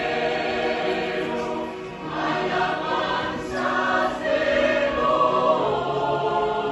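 Mixed church choir of men's and women's voices singing a hymn together, with held chords that change every second or so.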